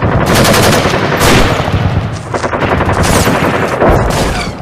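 Sustained rapid machine-gun fire, a dense stream of gunshots like a battle, tapering off at the very end.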